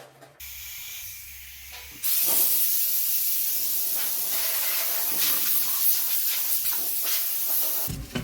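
Loud, steady spraying hiss that starts about two seconds in, after a quieter hum, and cuts off abruptly near the end.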